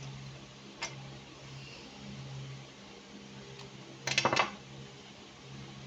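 A single sharp click about a second in, then a brief clattering run of small hard clicks about four seconds in, over a steady low hum.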